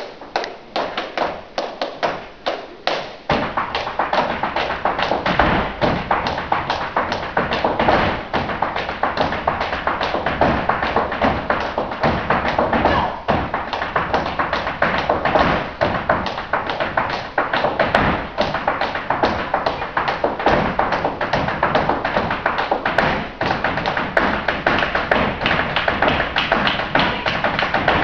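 Flamenco zapateado footwork: a dancer's shoes striking a wooden stage. For the first three seconds or so the stamps are spaced apart, then they run together into a rapid, unbroken rattle of heel and toe strikes.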